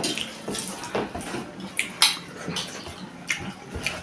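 Eating sounds up close: a string of short clicks and clinks from plates and utensils, with mouth sounds of the meal, every half second to a second.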